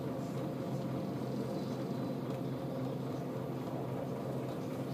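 Scania L94UB bus's diesel engine running at a steady speed, heard from inside the passenger saloon as an even drone that neither rises nor falls.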